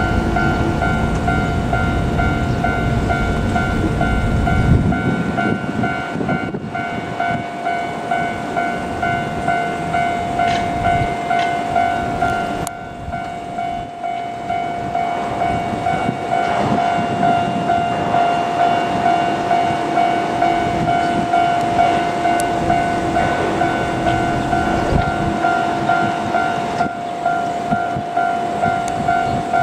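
Japanese railway level-crossing warning bell ringing, a single electronic tone repeating in quick, even strokes. A heavy low rumble underlies the first five seconds and stops abruptly.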